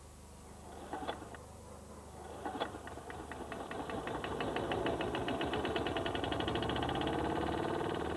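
A few clicks, then a small machine starts up about three seconds in and runs with a fast, even pulsing that grows louder.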